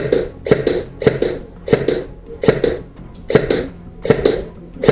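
Suppressed airsoft electric rifle (G&G Predator) firing tracer BBs on semi-automatic: about eight muffled shots at a steady pace, a bit under a second apart, each a pop with a quick second click.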